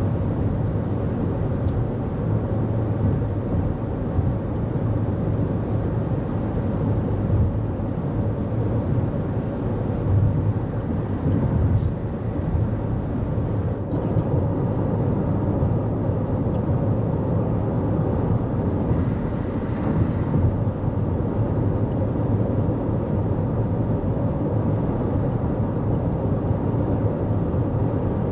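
Steady road noise of a 2024 Toyota Corolla Cross cruising at highway speed: a constant deep rumble of tyres and engine.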